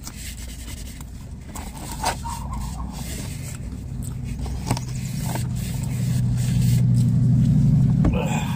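A car going by on the road, its low engine rumble building and loudest near the end, then dropping away, with a couple of light clicks along the way.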